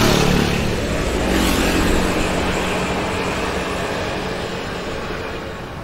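A motor vehicle's engine running with a steady low hum, slowly fading away over a few seconds.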